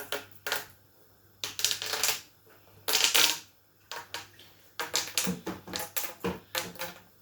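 Plastic twister fidget tubes being squashed and twisted by hand: a run of crackling rattles and clicks, with two longer crackles in the first half and quicker clicking near the end.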